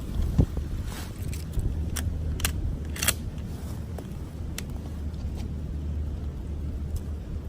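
Wind rumbling on the microphone, with a few light metallic clicks and rattles from about a second in to near the end.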